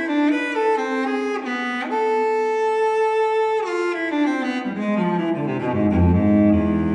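Background music on bowed strings: a melody of quickly changing notes, one long held note in the middle, then a line stepping downward into a low held bass note near the end.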